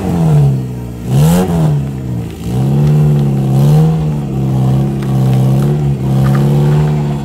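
Suzuki Swift sedan's petrol engine revving up twice in short rises. It then runs at a steady, slightly wavering pitch as the car drives off slowly.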